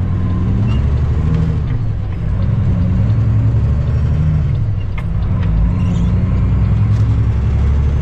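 Cummins ISX diesel engine of a Kenworth W900L semi truck, heard from inside the cab, pulling hard as the truck accelerates away from a turn. Its pitch climbs and drops about three times as the driver shifts up through the gears.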